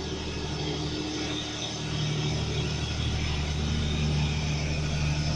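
Heavy diesel truck engine, a tractor unit hauling a loaded flatbed semi-trailer, running steadily at an even pitch as the truck drives past, growing louder about two seconds in as it comes close.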